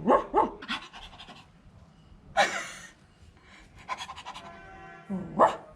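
Dog sounds: two short yelps at the start, a harsh bark in the middle, and another yelp near the end, with panting between.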